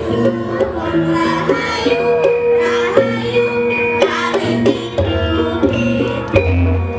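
Javanese gamelan ensemble playing: bronze metallophones ring out a stepwise melody, voices sing a gliding line over it, and a deep low stroke sounds about six seconds in.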